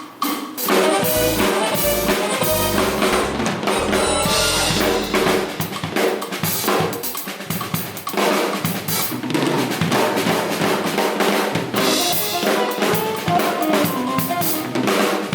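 A drum kit, with bass drum, snare and rimshots, playing in a full band track alongside bass and other pitched instruments. Deep bass notes sound in the first few seconds.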